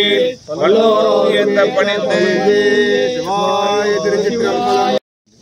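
Male devotional chanting of a Tamil Shaiva hymn, a continuous sung recitation. It breaks off abruptly near the end.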